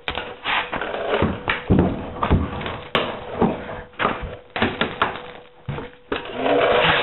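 Irregular heavy thuds and crunching of rusted car sheet metal as a rear quarter panel is beaten and torn open, about a dozen blows with a longer grinding, scraping stretch near the end.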